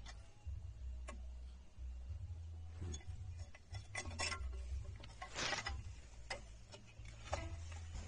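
Scattered light metal clicks and a short scrape, from fitting a drum-brake shoe's hold-down pin and spring cup by hand, over a steady low rumble.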